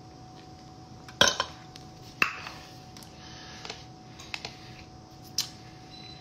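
A few light clinks and knocks from a drink can and a hookah hose being handled, the loudest about a second in.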